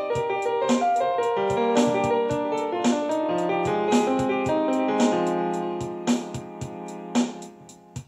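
Instrumental piano beat: sustained piano chords over a sharp percussive hit about once a second, fading out near the end.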